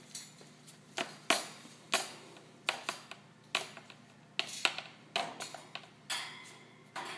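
Pet pigeon playing with a small toy in a wire cage: about a dozen irregular sharp knocks and taps as the toy is pecked and tossed against the cage, some with a short ring after them.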